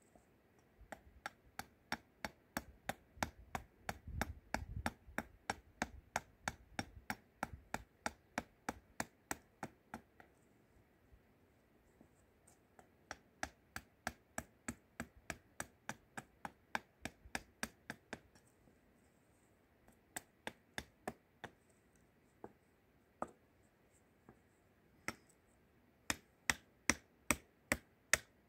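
A small hammer striking a tool set into a wooden spoon blank on a chopping block: sharp, regular knocks about two to three a second, in runs broken by short pauses, with heavier thudding blows a few seconds in.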